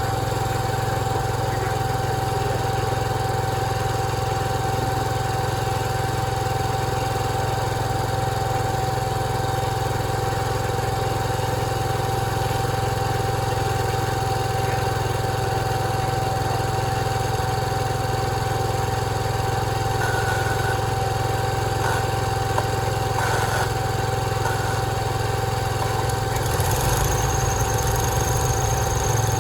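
Sawmill machinery running steadily: a low engine-like rumble with a steady whine over it, the rumble turning more uneven near the end.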